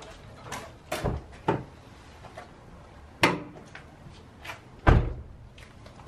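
A run of clunks and knocks as the bonnet release is worked from inside the car and the Mk4 Mondeo bonnet latch fitted to a Ford Focus Mk2 lets the bonnet pop, along with door-like closing sounds. Four knocks in all; the heaviest, a deep thump, comes about five seconds in.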